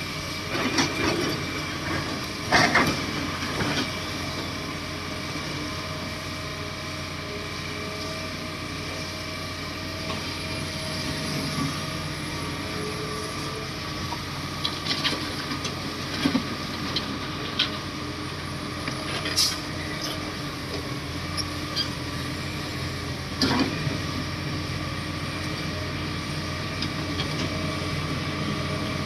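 Komatsu D58 bulldozer's diesel engine running steadily, with scattered sharp knocks.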